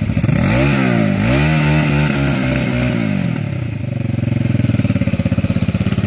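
Motorcycle engine being revved: the pitch climbs, dips, climbs again and holds for a couple of seconds, then falls back about three seconds in to a steady, evenly pulsing idle.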